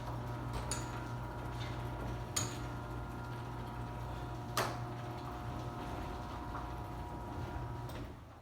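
Garage door opener running with a steady motor hum while the door opens, with a few sharp clicks from the door mechanism. The motor stops abruptly about eight seconds in as the door reaches its stop.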